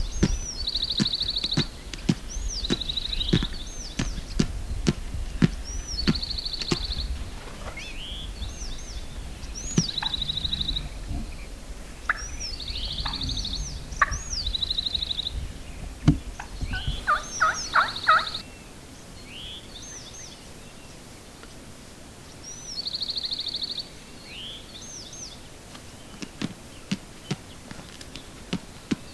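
Gould's wild turkey gobbling among repeated high bird calls and trills, with scattered clicks and rustling.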